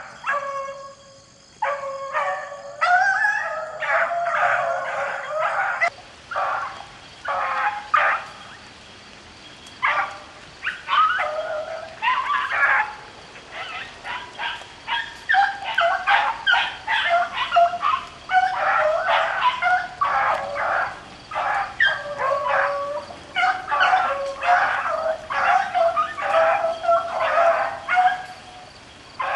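A pack of beagles baying and barking almost without pause, several voices overlapping at different pitches: hounds giving tongue as they run a rabbit.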